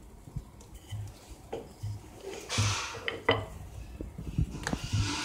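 Wooden rolling pin rolling out dough on a granite counter: soft rhythmic thuds about every 0.7 seconds as it goes back and forth, with light knocks and clicks as the pin and dough disc are handled.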